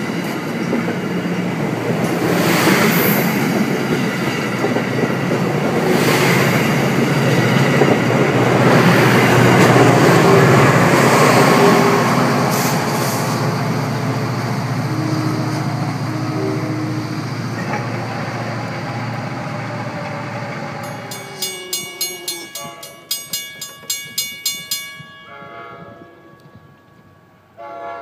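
NJ Transit push-pull train with Comet coaches and a PL42AC diesel locomotive on the rear passing a grade crossing: wheels and rails rumbling and clattering, loudest as the locomotive goes by, then fading as the train pulls away. Near the end the crossing bell dings about twice a second.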